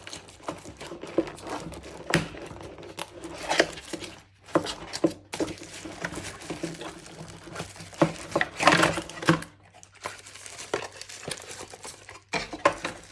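Plastic packaging crinkling and cardboard rustling with irregular light clicks and knocks as a security camera's box is unpacked by hand.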